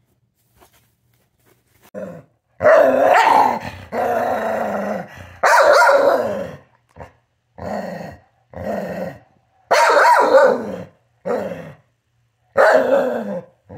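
A dog howling in a string of about ten drawn-out calls, many sliding down in pitch at the end, with short gaps between them; the calls start about two seconds in.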